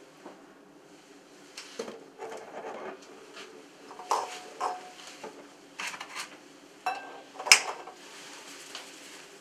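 Eggs set one by one into a glass bowl on a digital kitchen scale: a string of light clinks and knocks of shell on glass and on the other eggs, the bowl ringing briefly after some of them, the sharpest about seven and a half seconds in.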